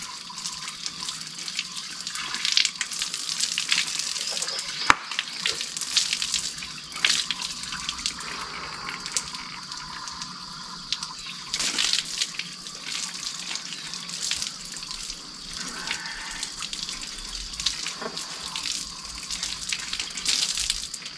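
Water running from an outdoor tap and splashing onto stone paving as a man washes under it, in uneven splashes. A steady high insect drone sounds behind it.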